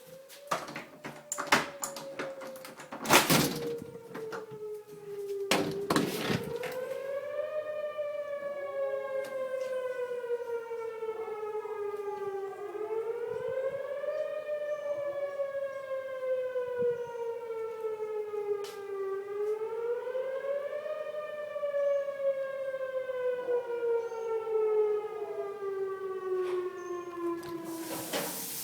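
Whelen 2809 outdoor tornado warning siren wailing, its pitch rising quickly and then falling slowly in a cycle that repeats about every six seconds. A few sharp knocks sound over it in the first six seconds.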